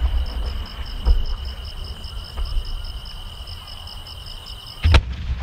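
Insects trilling steadily, a continuous high trill with a second pulsing chirp above it, with a dull thump about a second in. Near the end, a large aerial firework shell bursts with a loud boom.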